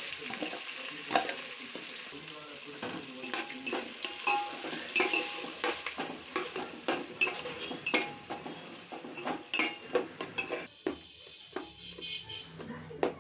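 Food sizzling in hot oil in a pan while being stirred, with the spoon clicking and scraping against the pan many times. The sizzling stops abruptly near the end, leaving a few clinks.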